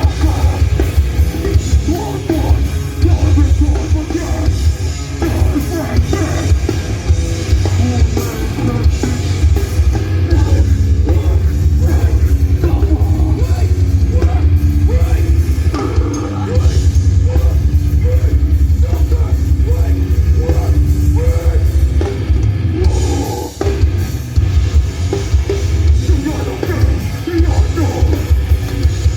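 A metallic hardcore band playing live at full volume: heavy distorted guitars and bass with pounding drums, recorded on a phone in the crowd, so the low end is boomy and overloaded.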